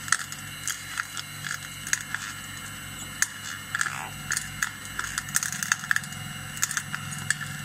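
Electric screw oil press running with a steady hum, while hard baobab seeds crack and click irregularly as the screw crushes them.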